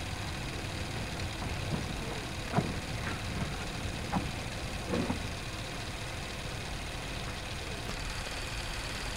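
Small narrow-gauge saddle-tank steam locomotive running slowly with a steady rumble and hiss, with a few short knocks or clanks around the middle.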